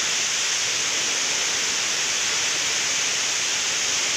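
Steady rush of falling water from a waterfall, an even hiss with no change in level.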